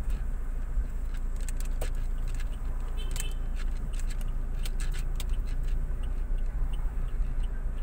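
Car cabin with a steady low road and engine rumble while driving slowly, with scattered light clicks and jingles between about one and a half and five and a half seconds in.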